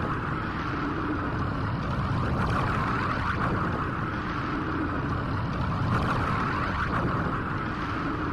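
Super Saiyan Blue aura sound effect, sped up and lowered in pitch: a steady, continuous rushing energy noise with a fine flickering texture and no breaks.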